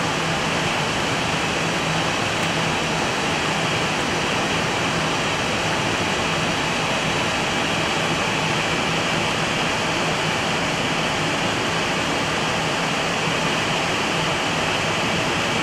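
Steady flight-deck noise of an Airbus A320 taxiing with its engines at idle: an even rushing hiss of engine and air-conditioning airflow over a constant low hum.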